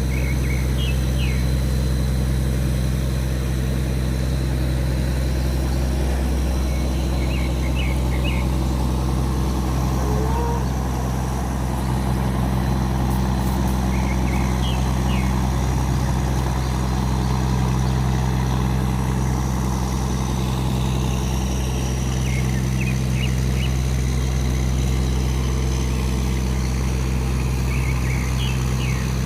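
Tugboat diesel engine running steadily under load against the current, a continuous low drone. Short high chirps recur faintly every few seconds.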